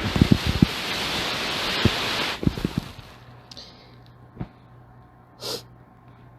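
A notebook PC being handled: rustling noise and several low knocks. About three seconds in, a steady low hum begins as the laptop powers up, with a single click and a short hiss a little later.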